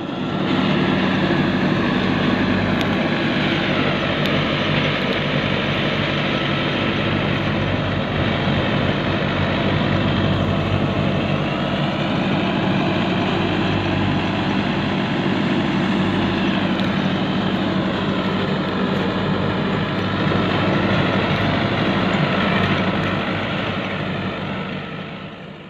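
Tractor engine running steadily under load while it drives a straw chopper, with the chopper's rotor and blower noise as it cuts stubble and blows chopped straw into a trailer. The drone fades out near the end.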